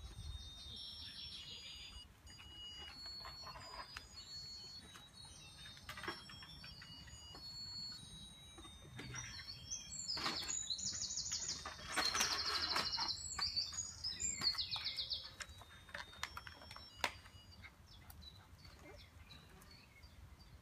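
Small birds chirping, with a loud, rapid high trill in the middle.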